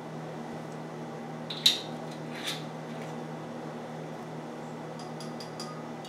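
Two sharp clinks about a second apart, then from about five seconds in a quick run of small clicks as the twist-off cap of a 40-ounce glass malt liquor bottle is turned and its seal ring breaks, over a steady low hum.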